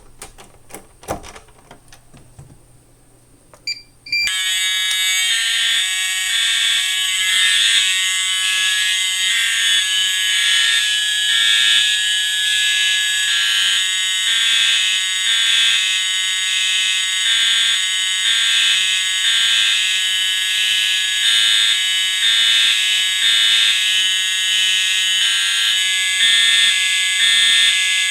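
A few clicks, then about four seconds in many Edwards and Siemens fire alarm horns start sounding together: a loud, layered mass of pitched horn tones with a rapid pulsing pattern that keeps going.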